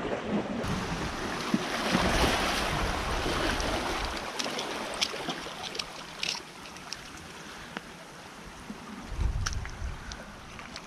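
Surf washing against a granite rocky shore with wind rumbling on the microphone, loudest in the first few seconds. Then several sharp, light clicks and taps as small items are handled and set down on the rock.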